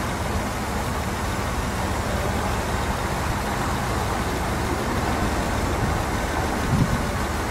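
Car engine running steadily with an even low drone while an engine-killing additive is poured into it. A short low bump comes near the end.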